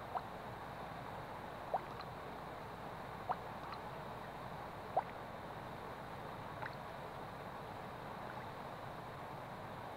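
Steady soft hiss of ambience, with five short, sharp rising chirps spaced about a second and a half apart. The loudest chirp comes about five seconds in.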